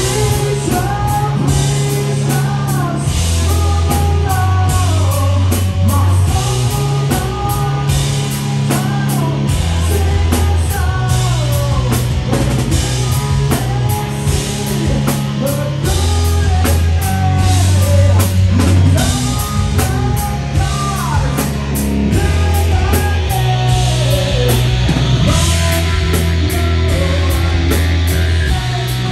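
A live rock band plays loudly: a singer over electric guitar, bass guitar and a drum kit with busy cymbals. The bass holds low notes that change every second or two.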